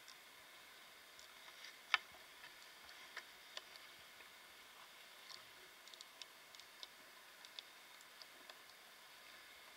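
Near silence on a chairlift ride: a faint hiss with scattered small clicks and ticks, the loudest about two seconds in.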